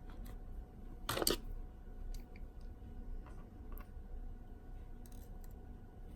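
Faint clicks and light scrapes of small metal parts being handled during iPhone 6 Plus reassembly, with one louder, longer scrape about a second in, as the metal connector cover plate is fitted back over the ribbon connectors.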